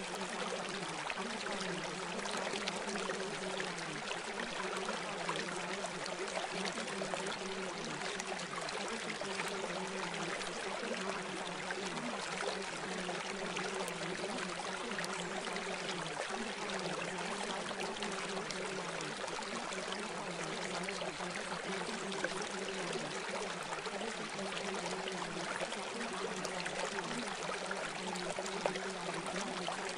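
Steady sound of running water, like a flowing stream, with a faint low hum underneath that wavers slowly.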